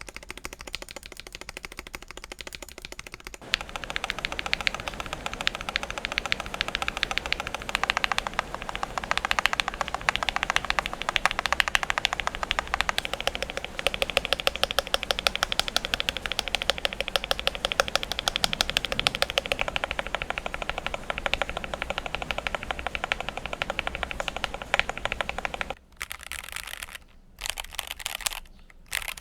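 Fast, continuous typing on a GMMK Pro mechanical keyboard with lubed Akko CS Starfish linear switches, tuned stabilizers and foam, polyfill and tape mods, the keystrokes running together into a rapid clatter. The typing is lighter at first and breaks into short pauses near the end.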